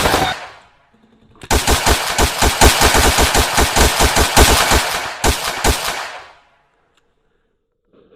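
Rapid automatic gunfire, about seven shots a second. Gunfire tails off at the start, then after a short pause a long burst starts about a second and a half in, breaks briefly, and dies away a little past the middle.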